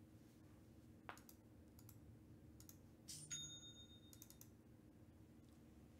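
Near silence broken by a few faint keyboard and mouse clicks, with a thin high electronic tone lasting about a second just after the three-second mark.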